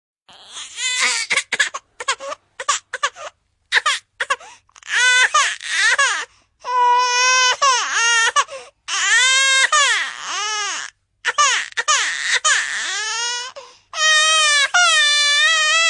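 Infant crying: short, broken sobs at first, then long wails that rise and fall in pitch.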